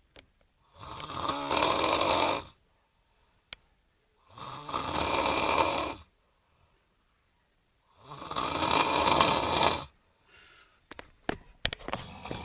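A man snoring: three long snores about three and a half seconds apart, with faint breaths between them. A few sharp clicks come near the end.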